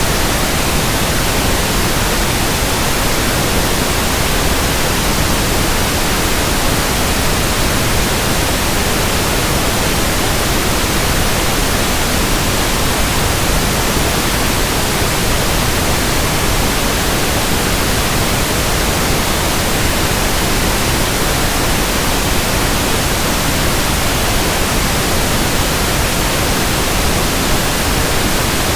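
Pink noise test signal, a steady even hiss across the whole range of pitch, used for measuring the frequency response of a sound system.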